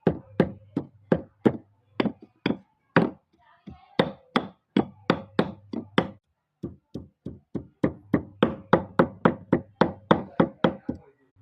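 Fresh ginger being pounded with a smooth stone in an earthenware bowl: a run of sharp knocks, about three a second, with a short pause about six seconds in.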